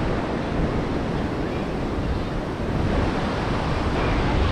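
Gulf of Mexico surf breaking and washing onto the beach in a steady rush, with wind buffeting the microphone.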